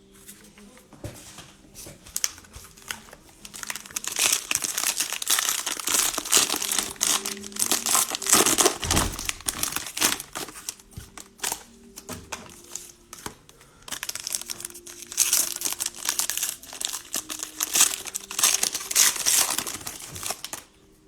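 Cellophane wrappers of trading-card packs crinkling and tearing as the packs are opened, in two main bouts of crackling.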